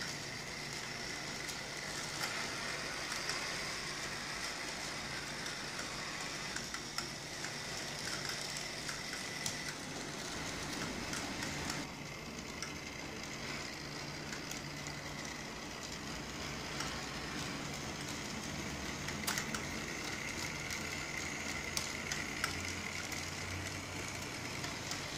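Model streetcars running on the layout: a steady small-motor hum with a thin whine, and scattered light clicks from the wheels on the track.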